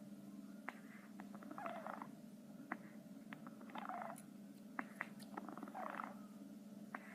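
Hedgehog snoring: three breathy snores about two seconds apart, with small sharp clicks in between.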